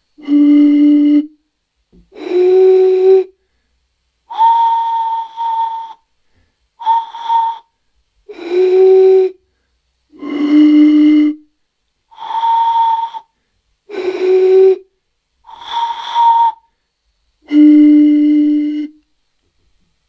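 Three glass bottles holding different amounts of water, blown across in turn. Each gives a breathy hooting note about a second long, about ten notes in all, at three pitches (low, middle and high) in changing order. The fullest bottle, with the least air above the water, gives the highest note.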